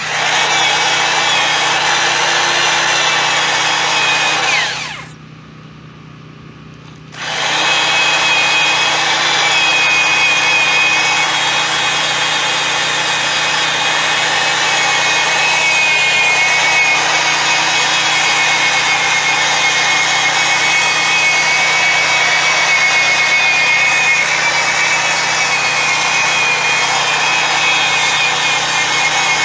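Drill spinning a foam polishing pad, buffing cut polish into a plastic headlight lens with a steady motor whine. It stops about five seconds in and starts again some two seconds later.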